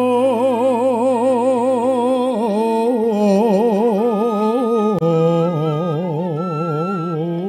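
A male voice singing a slow Javanese vocal line in long held notes with wide vibrato, stepping down in pitch twice. A steady higher instrumental note is held alongside from about halfway.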